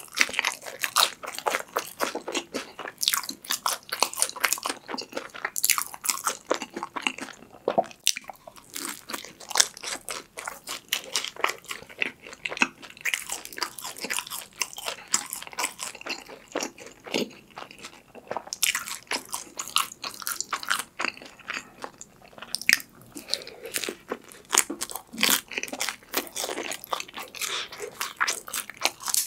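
Close-miked eating: biting and chewing crisp fried crust in repeated loud crunches with wet chewing in between.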